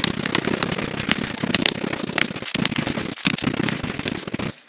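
Meat tenderizer mallet pounding flank steak through parchment paper on a marble counter, in rapid repeated blows that flatten the meat. The pounding stops abruptly near the end.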